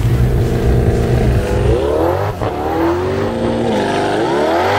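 Twin-turbo C8 Corvette LT2 V8 running at steady revs on the line, then launching hard. The engine note climbs in pitch through the gears, breaking briefly at each quick upshift.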